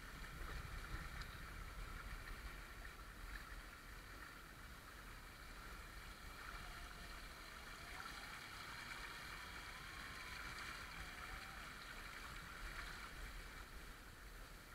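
Shallow stream water rushing steadily and splashing around the wheels of a Traxxas TRX-4 RC crawler truck as it drives through the current. A faint whine wavers up and down in pitch about halfway through.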